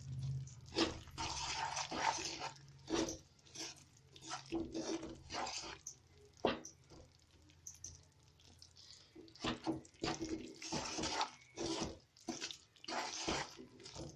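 A spoon stirring and scraping melting jaggery in a pan over low heat, with irregular taps and short swishes.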